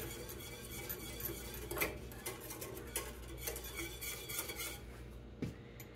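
A wire whisk clinking and scraping against the side and bottom of a metal saucepan as cream of wheat is whisked into water, in quick irregular taps that thin out near the end.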